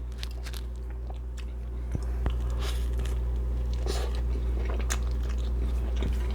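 Close-miked chewing and biting of food, with scattered short mouth clicks and soft crunches over a steady low hum.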